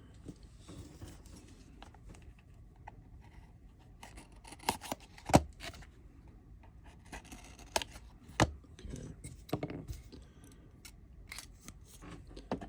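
Scissors cutting packaging: a few sharp snips among quiet rustling of cardboard and wrappers.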